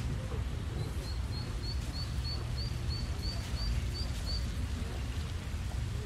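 Park ambience of a small crowd: faint voices over a steady low rumble. A bird repeats a short high chirp about three times a second from about a second in until past four seconds.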